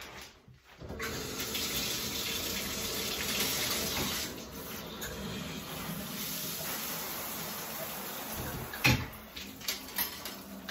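Water running from a newly installed handheld shower head into a tub, turned on about a second in for a leak test of the new connection; it is a little quieter after about four seconds. A single sharp knock near the end.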